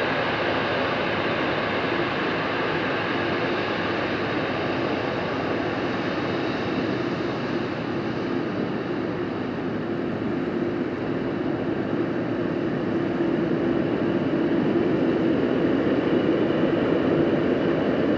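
Jet engines of a UPS Boeing 747 freighter running as it taxis, a steady whooshing roar with a low hum. The sound grows louder over the last few seconds as the engines turn toward the listener.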